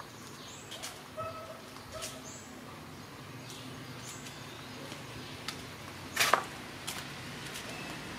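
Outdoor ambience: a low steady hum with a few short, high bird chirps in the first half and scattered light clicks and crackles, the loudest cluster of crackles about six seconds in.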